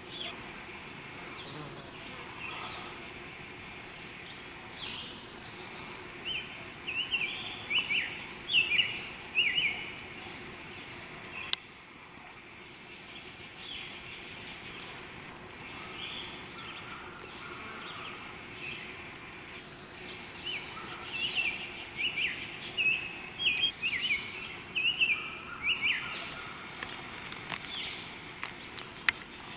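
A songbird singing two bouts of quick chirping phrases, about six seconds in and again about twenty seconds in, over a steady high insect buzz in summer woods. A single sharp click near the middle.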